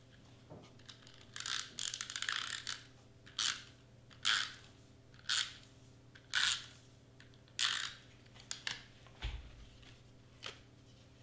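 Double-sided tape runner drawn along cardstock tabs in quick strokes: a longer, broken rasp, then a series of short rasps about one a second, with fainter ones near the end.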